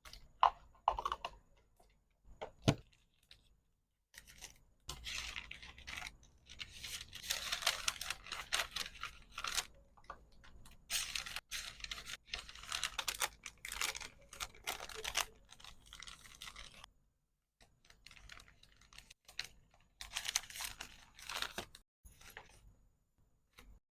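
Packaging being handled by hand: a few sharp clicks and taps, then long stretches of crinkling, rustling and tearing of wrapping material, broken by short pauses.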